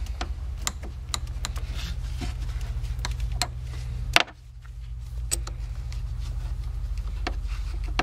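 Scattered light clicks and taps of a 5 mm hex key working the clamp bolt of a battery terminal connector, over a steady low hum, with one sharper click a little after halfway.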